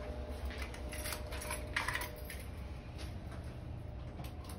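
Scattered light clicks and small metal clinks, the loudest just under two seconds in, over a steady low hum.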